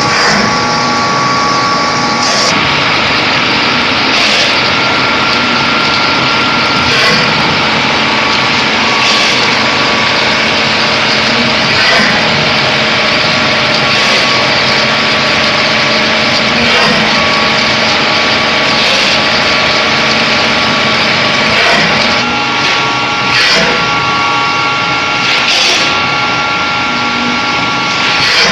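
Egg tray pulp moulding machine running: a loud, steady mechanical drone with several steady whining tones, broken by short knocks every two to three seconds.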